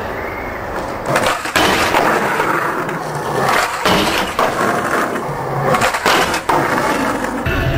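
Skateboard wheels rolling on rough concrete, with several sharp cracks of the deck and trucks hitting the ground and a ledge, and the scrape of trucks grinding along the ledge.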